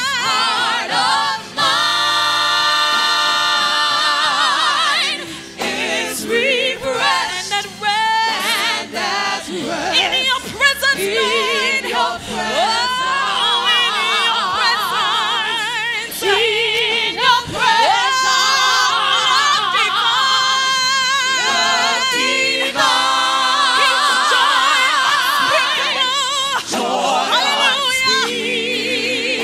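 Male and female gospel singers singing a worship song into microphones, holding long notes with vibrato.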